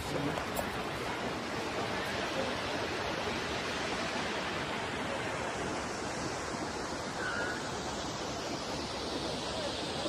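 Waterfall pouring down a rock cliff into a lake: a steady, even rush of falling water.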